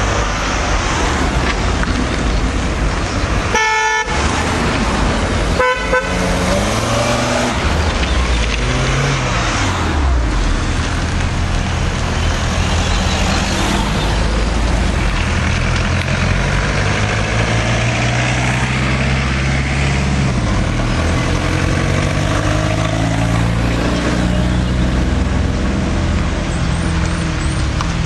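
Volkswagen cars driving in one after another, engines running and changing pitch as they slow, turn and pull away. A car horn sounds briefly about 4 seconds in and again about 6 seconds in.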